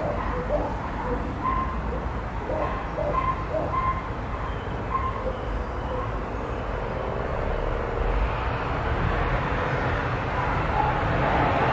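Outdoor background: a steady low rumble, with a few short pitched calls in the first half and a broad drone that swells toward the end.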